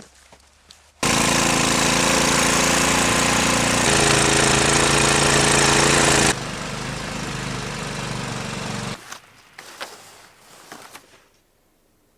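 A small petrol engine running steadily. It starts abruptly about a second in, shifts pitch near four seconds, drops in level just past six seconds, and stops about nine seconds in.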